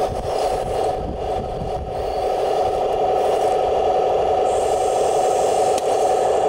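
1:16 scale RC tanks running, giving a steady, unbroken mechanical drone, with wind rumbling on the microphone underneath.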